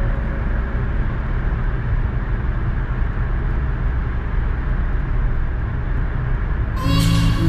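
Steady road and tyre noise heard from inside a car's cabin while it drives through a road tunnel, an even rumble with no engine note standing out. Music comes in near the end.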